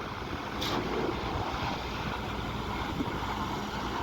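Steady machinery rumble with wind noise on the microphone, and a brief hiss about half a second in.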